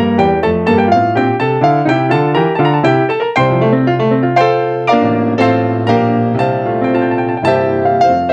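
Piano playing quick, evenly spaced notes, then from about three seconds in fuller held chords over a deep bass note.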